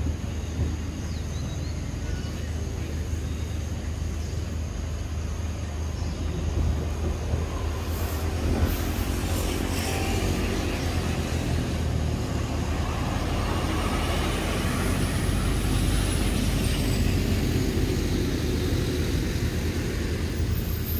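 Steady low outdoor rumble with a motor vehicle passing, its engine sound swelling and fading in the middle of the stretch.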